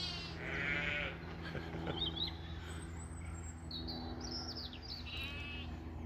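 Sheep bleating, one bleat at the start and another about five seconds in, with short bird chirps in between.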